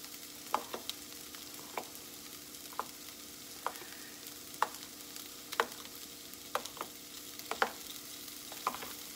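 Metal spoon stirring saucy baked beans in a mixing bowl, knocking against the bowl's side about once a second with a wet stirring sound between the knocks.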